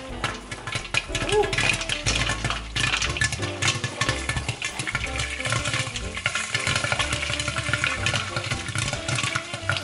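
Popcorn kernels popping fast in hot oil inside a lidded stainless steel pot, with a sizzle beneath. The pot scrapes and rattles on the burner as it is shaken back and forth to keep the kernels from burning.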